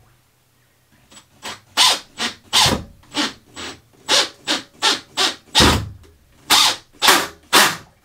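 Cordless drill driving screws into timber wall framing in a string of short bursts, about a dozen, starting about a second in.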